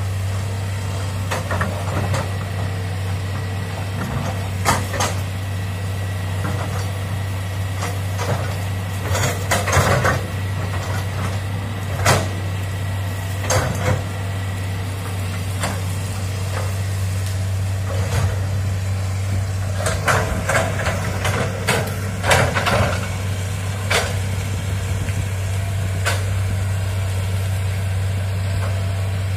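Hitachi hydraulic excavator's diesel engine running steadily, with scattered sharp cracks and knocks as the machine works through brush and small trees, in two busier clusters about a third of the way in and again about two-thirds in.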